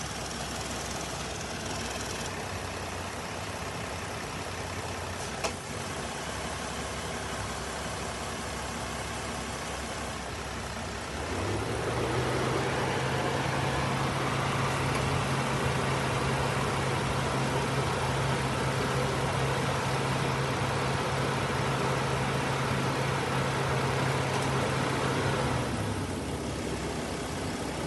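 Electric garage door opener motor running with a steady hum, starting abruptly about eleven seconds in and cutting off about fifteen seconds later, the length of one door travel. A single sharp click comes about five seconds in.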